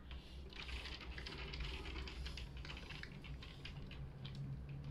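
A quick run of light clicks and rattles, bunched between about half a second and four seconds in, over a steady low hum.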